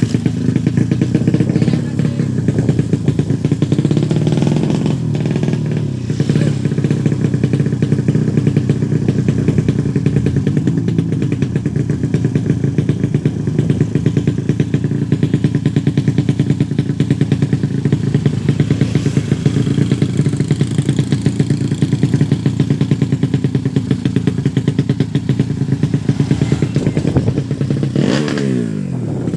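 Tuned 130cc drag-racing motorcycle engine running steadily with a fast, even beat; its pitch slides down near the end.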